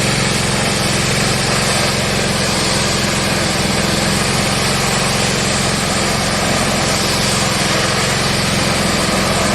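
Small petrol engine of a pressure washer running steadily under the hiss of the high-pressure water spray. The owner fears it will cut out again and puts the stalling down to a quick-and-dirty carburetor cleaning.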